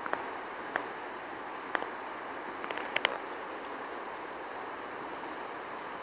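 Steady outdoor background noise, an even hiss with no tone or rhythm, broken by a few sharp clicks in the first three seconds, with a quick cluster of them around the three-second mark.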